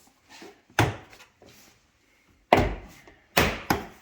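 Plastic retaining clips of a car's rear door trim panel being snapped into the door by hand. There are four sharp thumps, the first about a second in and the last three close together near the end.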